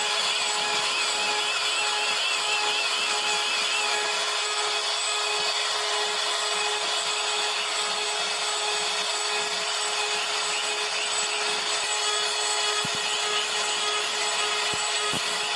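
CNC router spindle running steadily with the bit cutting into wood: a constant whine over a continuous rasping cutting noise.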